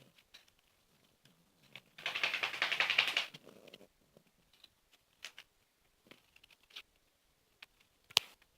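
Whippet puppy snoring: one rasping, fluttering snore about two seconds in, lasting nearly two seconds, followed by small clicks and snuffles and a sharp click near the end.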